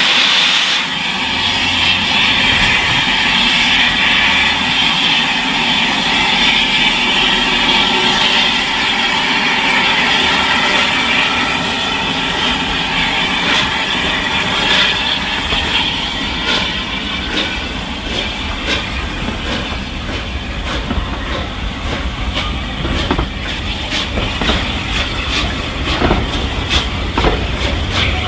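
Unrebuilt Bulleid West Country class Pacific steam locomotive pulling a train away, with loud steam hiss from around its cylinders that fades after about twelve seconds. The coaches then roll past with a low rumble and wheels clicking over the rail joints, the clicks more frequent near the end.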